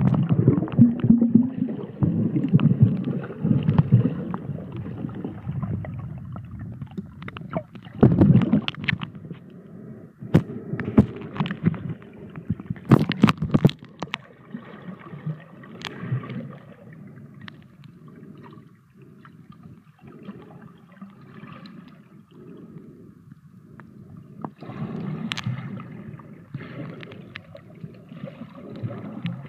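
Water gurgling and sloshing around a camera held underwater, with scattered sharp clicks and knocks, louder in the first half.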